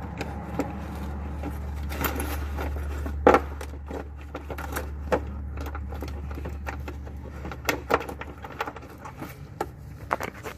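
Scattered irregular metallic clicks, knocks and scrapes of hand tools working a 12 mm bolt loose under the car, with one sharper knock about three seconds in, over a steady low hum.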